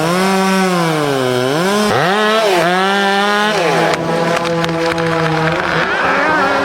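Chainsaw engine running at high revs, its pitch repeatedly sagging and recovering as the chain bites into the wood and frees again, with the deepest dips about two seconds in and a steadier stretch in the second half.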